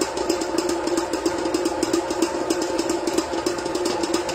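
Electric stand mixer running steadily with its dough hook kneading yeast bread dough in a stainless steel bowl: a constant motor hum with a fast rattle.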